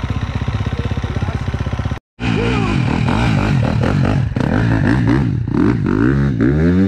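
Motorcycle engine running at a steady, even beat, then, after a brief cut about two seconds in, revving up and down repeatedly.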